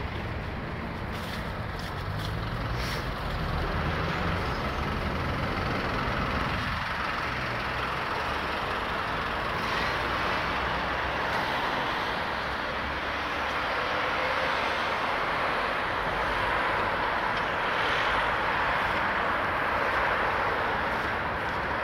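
Road traffic: cars, vans and lorries running and passing on a busy road, a steady wash of engine and tyre noise.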